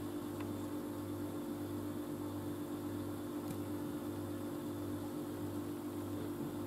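A steady low hum with a deeper throb that pulses about twice a second.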